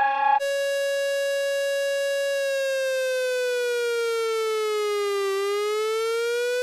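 Emergency alert siren tone: a steady, buzzy tone that starts about half a second in, holds, then slowly falls in pitch and climbs back up again.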